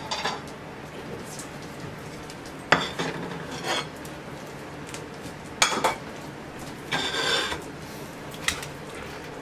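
Glass plates set down and slid on a kitchen counter: a handful of separate clinks, knocks and short scrapes, with one longer scraping clatter about seven seconds in.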